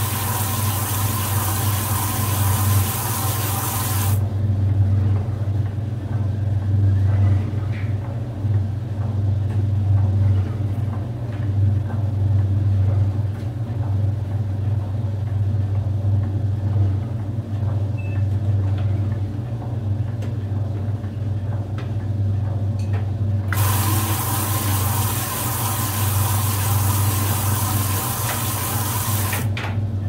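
Brastemp Luxo 4 kg top-load washing machine running with a steady low motor hum. Water rushes into the tub twice, cutting in and out sharply: for about the first four seconds, and again from about two-thirds of the way in until shortly before the end.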